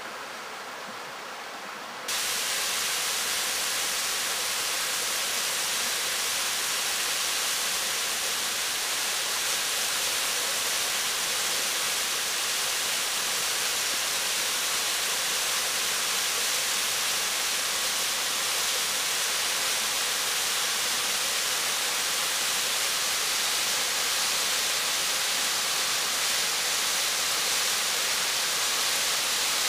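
Waterfall pouring down a rock face into a pool: a loud, steady rush of water that starts suddenly about two seconds in. The uploader takes the fall for the outlet of a dam spillway.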